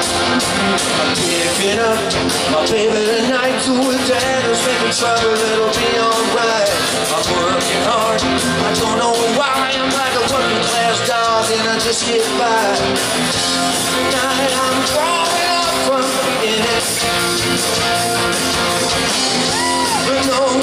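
Live rock band playing at full volume: electric guitars and a drum kit with cymbals, a loud, dense, continuous sound.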